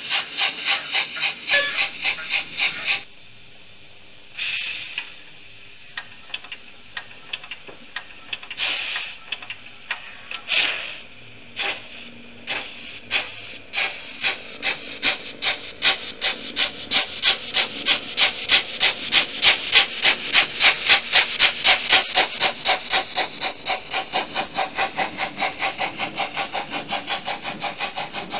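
Sound decoder of a Trix HO-scale 050 TA steam tank locomotive model playing steam chuffs through its small speaker as the model runs, an even beat of roughly three exhaust beats a second. The beat breaks off about three seconds in, a few separate hissing bursts follow, then the chuffing returns and grows louder as the locomotive approaches, easing near the end as its wagons roll past.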